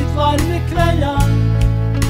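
Song playing: a melody line over steady bass and chords with a regular beat. The melody stops just over a second in, leaving the backing.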